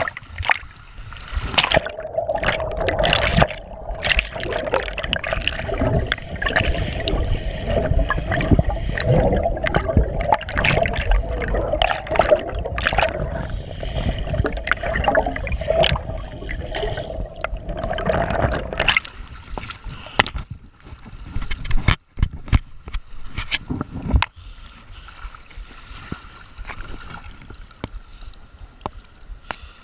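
River water rushing and splashing around a kayak in whitewater, with many sharp splashes. Loud and choppy for about the first two-thirds, then calmer and quieter.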